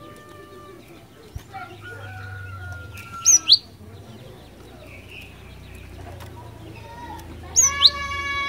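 Cinereous tit (glatik batu) calling: two short, loud bursts of sharp, high, sweeping notes about four seconds apart. Fainter bird calls and a low hum sound in the background.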